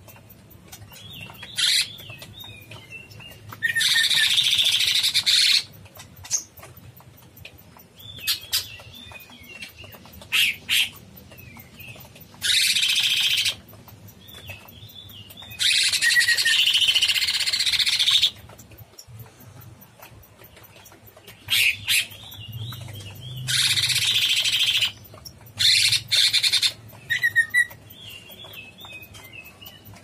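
Blue-winged leafbird (cucak cungkok) singing vigorously. Loud, harsh rasping bursts of one to two seconds alternate with softer, quick twittering phrases and short sharp chips.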